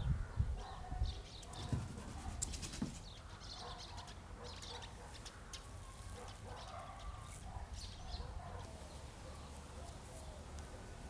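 Village morning ambience: small birds chirping and twittering throughout, with softer clucking calls from hens. A few low thuds come in the first three seconds.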